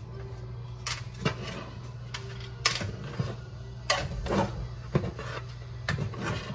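A spatula cutting and scraping through cornbread in a baking pan: sharp clicks and knocks of the spatula against the pan, roughly one a second, over a steady low hum.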